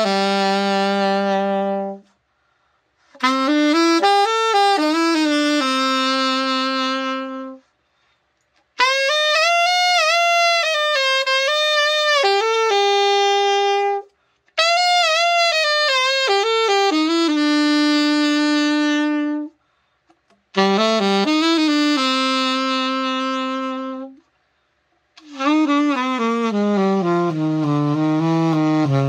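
Indiana by Martin alto saxophone played solo in a string of short melodic phrases with vibrato, each ending on a held note, with brief breaths between them. This is a play test after a full overhaul, checking tone, intonation and balance.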